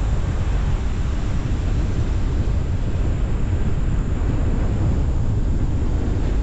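Wind buffeting the microphone of a GoPro Hero10 mounted on the roof of a moving car, a steady low rumble mixed with road noise from the car driving.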